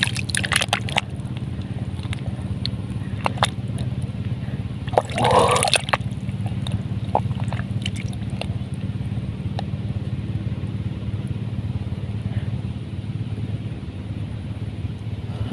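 Muddy water sloshing and dripping as a hand works in a flooded eel hole, with scattered small clicks and one louder splash about five seconds in. A steady low hum runs underneath.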